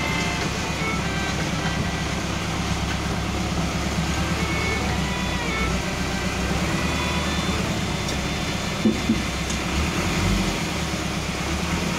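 Motor vehicle engine running steadily, with two short sharp knocks about nine seconds in.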